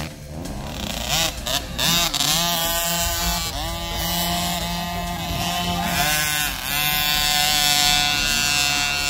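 Small motocross bike engines revving, a buzzing note that repeatedly rises and falls with the throttle, then holds a steadier high pitch near the end.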